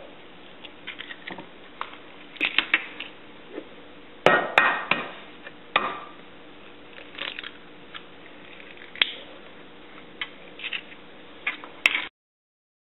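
Kitchen utensils clinking and knocking against a mixing bowl in irregular taps and small clusters, loudest about four to five seconds in, as eggs are cracked into a melted chocolate and sugar mixture and stirred in. The sound cuts off suddenly near the end.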